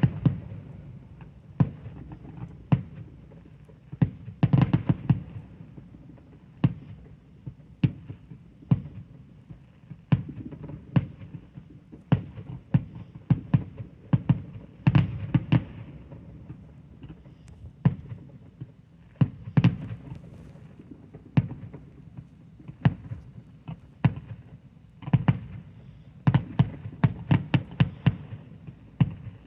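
Aerial fireworks going off: dozens of sharp bangs at irregular intervals, with a low rumble between them. Quick crackling clusters of bangs come about four seconds in, around the middle and near the end.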